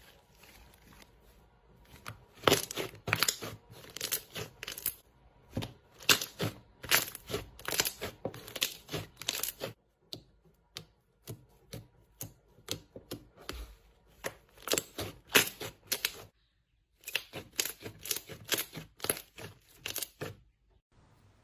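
Slime being squeezed and worked by hand, giving runs of sharp popping and crackling clicks several times a second, broken by two short pauses.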